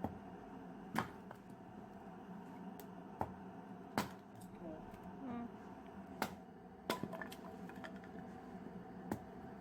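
Wood fire crackling in a homemade rocket stove: sharp, irregular snaps and pops, roughly one a second, over a steady low rush.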